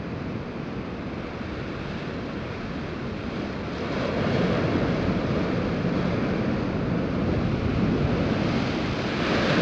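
Storm surf breaking against lava-rock sea cliffs: a steady roar of waves that grows louder as a big wave crashes about four seconds in, then surges again near the end.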